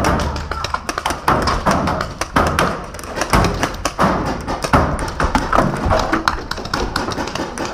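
Rapid, overlapping shots from several paintball markers firing at once, mixed with thuds and taps.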